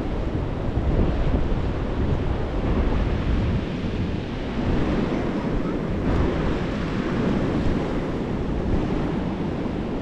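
Sea surf washing steadily onto the beach, with wind buffeting the microphone.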